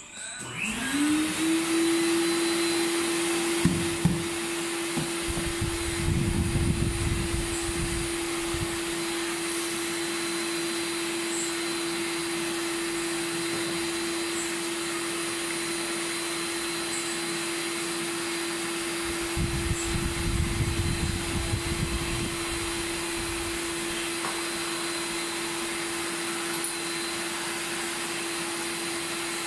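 Vacuum cleaner switched on, its motor spinning up within the first second to a steady whine with a rush of air that runs on unchanged. Now and then a lower rustle as the hose nozzle sucks up wood shavings from the bench, strongest a few seconds in and again about twenty seconds in.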